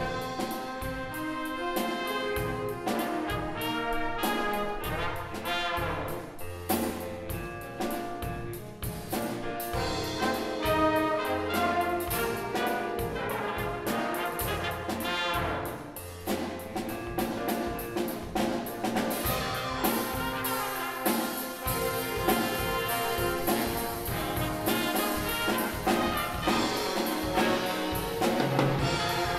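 High school jazz band playing live: a brass section with trumpets and trombones over drum kit and bass.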